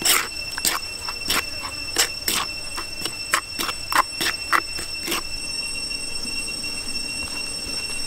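A utensil knocking and scraping against a stone mortar while stirring a chili sauce: quick irregular clinks that stop about five seconds in. A steady high-pitched whine sounds underneath throughout.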